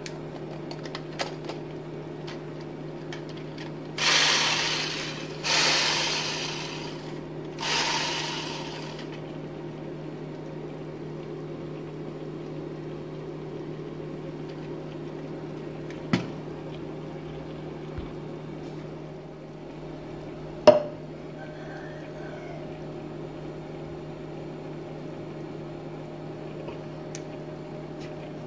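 Handling noise over a steady low hum: three rushes of rustling noise between about four and eight seconds in, each fading quickly, then two sharp clicks, the louder one about twenty seconds in, as an electric hand blender's handle and attachments are handled.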